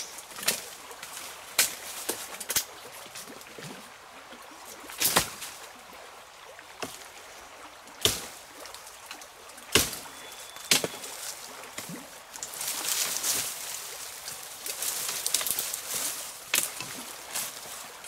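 Rain hissing steadily, swelling for a few seconds past the middle, with about ten sharp, irregularly spaced knocks and clicks scattered through it.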